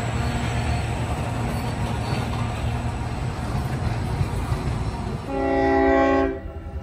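Train running with a steady low rumble, then a blast of a multi-tone train horn about five seconds in, lasting about a second before it cuts off and the overall sound drops sharply.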